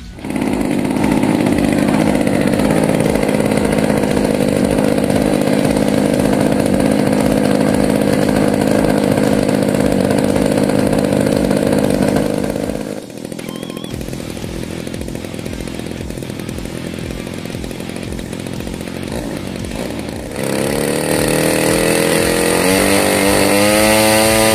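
50cc gasoline engine of an RC biplane running on the ground, spinning its propeller with a steady buzzing note. About halfway through it turns quieter. Near the end it revs up, its pitch rising in steps to a higher, louder run.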